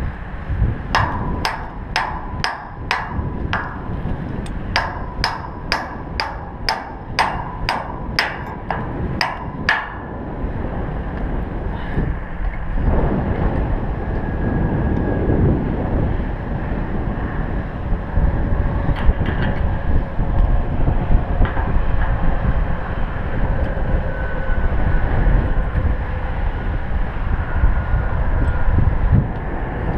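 A hammer striking steel about twice a second, each blow ringing, for the first ten seconds or so. After that comes wind on the microphone with a low rumble.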